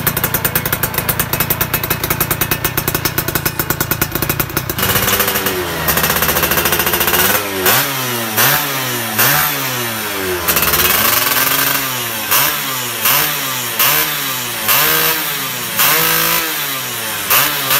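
Two-stroke Yamaha F1ZR motorcycle engine breathing through an aftermarket AHM exhaust. It idles steadily for about five seconds, then is revved in a string of short throttle blips, roughly one a second, each rising and falling in pitch.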